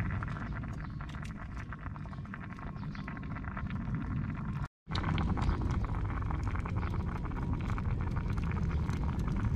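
Wind rumbling on the microphone over a steady hiss flecked with many small crackles. The sound drops out abruptly for a moment about halfway through.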